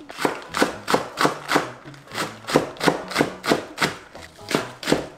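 Chef's knife slicing a Korean green onion into rounds on a wooden cutting board: a steady run of sharp taps, about three a second, with a couple of brief pauses.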